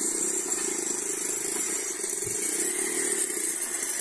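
Kawai BM-86 USB-powered computer speakers playing a steady, engine-like drone with hiss.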